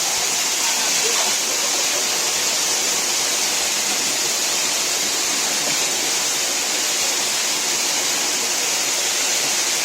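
Waterfall running with low flow, its water falling in a steady, even rush.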